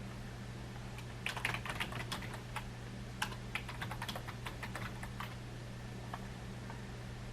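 Typing on a computer keyboard: a quick run of key clicks for about four seconds, then a few scattered keystrokes, over a steady low hum.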